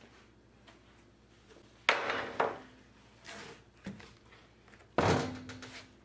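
Two loud wooden thunks about three seconds apart, with a few smaller knocks between: a freshly cut mulberry slab being handled, lifted off the log and set down against the table.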